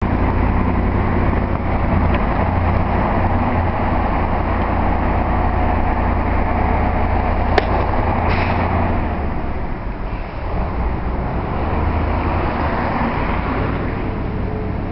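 A motor vehicle's engine running close by, a steady low rumble that fades after about nine seconds. A single sharp click comes about halfway through.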